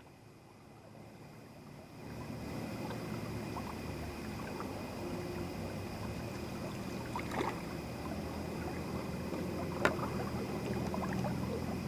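Water of a small river running and lapping, louder from about two seconds in, with a steady high-pitched hum and two sharp clicks, the louder one near the end.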